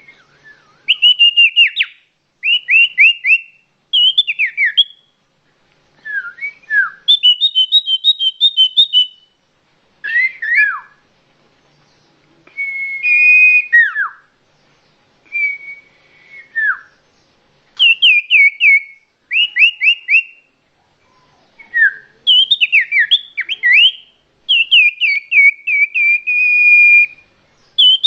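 A songbird singing in loud phrases of one to two seconds, each a quick series of clear whistled notes that mostly slur downward, with short pauses between phrases.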